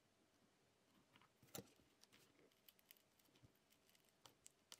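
Near silence with a few faint clicks of a pry tool against an iPhone 7's battery and frame as the glued-in battery is forced out, the loudest about one and a half seconds in.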